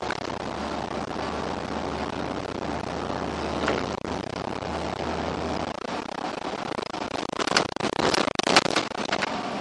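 Irisbus Citelis city bus heard from inside the cabin: steady noise with a low hum that stops about six seconds in, then a burst of sharp rattles and knocks near the end.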